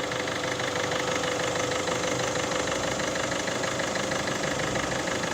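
A 1.6 HDi four-cylinder diesel engine idling steadily while still cold, with a light, even ticking. Its camshaft timing chain and tensioner have just been replaced, and it runs smoothly.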